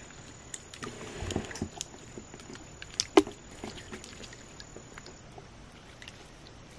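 Blue slime being squeezed and stretched by hand, giving scattered small sticky clicks and squelches, with one sharper pop about three seconds in.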